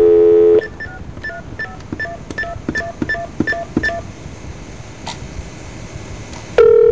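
Telephone line audio: a steady two-pitch tone for about half a second, then a quick run of about ten short keypad dialing beeps, about three a second, as a number is dialed. After a stretch of open line, a steady call tone starts again near the end.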